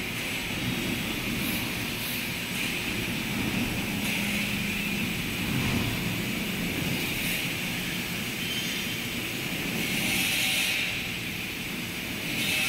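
Vertical milling machine running with a fly cutter taking a cut across a steel hydraulic shaft to mill wrench flats: steady machine running with a hissing cutting sound that swells and fades several times.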